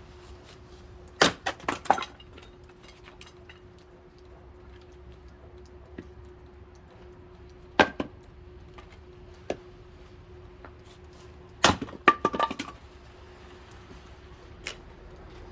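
Sharp knocks and clinks of hard objects striking each other, in three short clusters about a second in, near the middle and near the end, over a faint steady hum.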